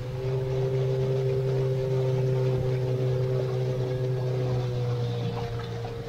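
Motor of a small river boat running steadily underway, with water rushing along the hull; the engine note drops a little about five seconds in.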